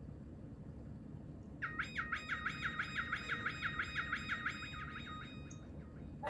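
Synthesizer sound from a MIDI keyboard set off by a cat's paw on the keys: a fast, chirpy electronic pattern repeating about six notes a second. It starts about a second and a half in and stops about four seconds later.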